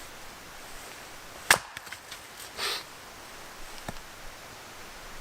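A heavy Swedish axe splitting a log: one sharp chop about a second and a half in, followed by a few small clicks and a short rustle as the split wood falls, then a faint knock.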